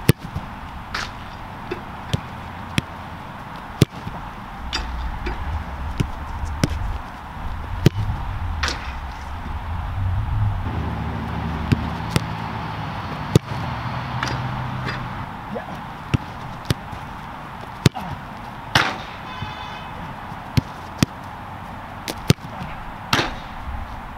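Soccer balls being struck by a player in Nike Mercurial Vapor 15 Elite boots on artificial turf: a string of sharp kicks and ball impacts at uneven intervals, some much louder than others.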